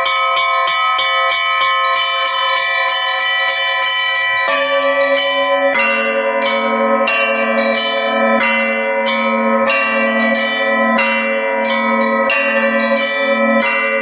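Russian Orthodox church bells in festal ringing. Small high bells strike quickly and steadily in a repeating pattern. Lower, larger bells join about four and a half seconds in and again about six seconds in, ringing on with the small bells.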